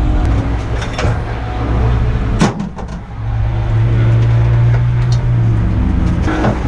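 Car engine running steadily, with a sharp click and a brief drop in loudness about two and a half seconds in, then a steady engine note at constant revs.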